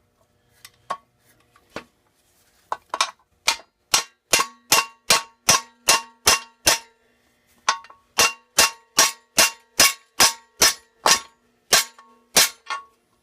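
A hammer drives a steel punch against a stuck section of a Briggs & Stratton small-engine housing to knock it loose. A few light taps come first, then two runs of quick, hard metal-on-metal blows, about two to three a second, that leave a ringing tone between strikes.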